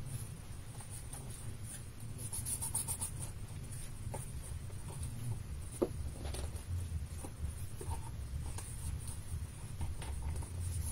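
Hands handling glued cardstock: faint rustles, scrapes and small taps as the paper box walls are pressed together, with one sharper tap about halfway through, over a low steady hum.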